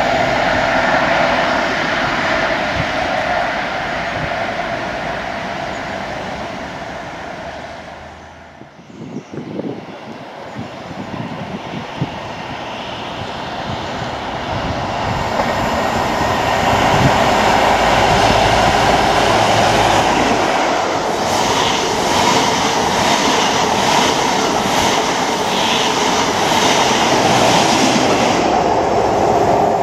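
Diesel High Speed Train with Class 43 power cars: first one running away at speed, its engine and wheel noise fading over about eight seconds; then another passing at speed close by, the sound building for several seconds and staying loud, with a rapid run of wheel clatter over the rail joints near the end.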